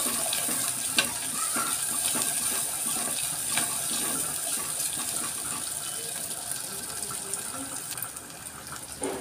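Ginger-garlic paste, onions and green chillies frying in hot oil in a pot, a steady sizzle that eases off slowly in the later seconds, with a couple of sharp clicks of a metal spoon stirring against the pot.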